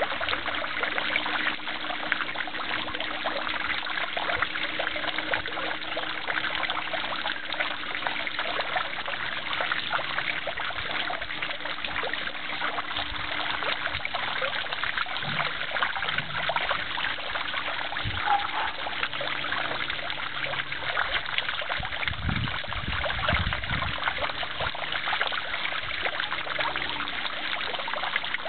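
Small garden-pond fountain: water from a jet and a bubbler splashing and trickling steadily into the pond. A brief low rumble comes about three-quarters of the way through.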